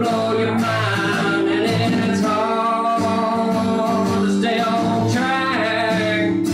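A man singing live with his own strummed acoustic guitar, holding several long notes.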